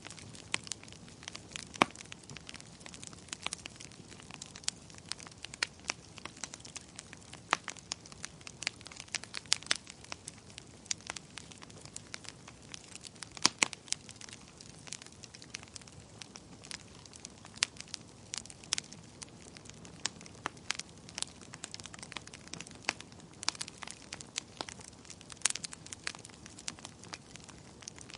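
Wood fire crackling steadily, with irregular sharp pops and snaps over a low, soft hiss of burning; a few louder snaps stand out, about two seconds in and near the middle.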